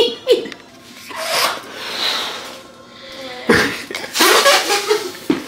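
A person blowing hard into a latex balloon to inflate it, with forceful, breathy puffs that grow loudest in the second half.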